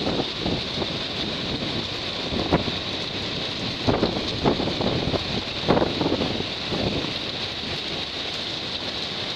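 Tropical-storm wind and rain: a steady rushing, with stronger gusts a few times that buffet the microphone.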